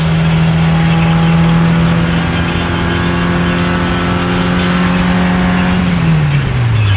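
Car engine droning at a steady pitch, heard from inside the cabin while driving on the highway. About six seconds in the pitch sags as the revs drop, then picks up again. Music plays underneath.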